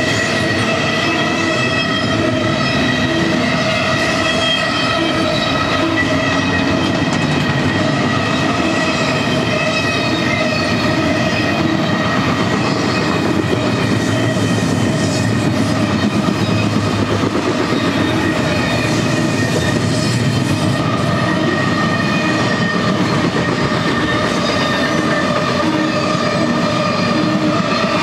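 Double-stack container train's well cars rolling steadily past: a loud continuous rumble and clatter of steel wheels on rail, with a steady high ringing squeal from the wheels.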